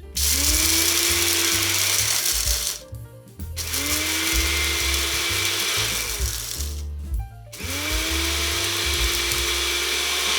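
TENKER 900W personal blender motor run three times in pulses of about three seconds each, with a short gap between, its pitch rising quickly as it spins up and then holding steady; the motor runs while the cup is pressed down onto the base and stops on release. Background music plays underneath.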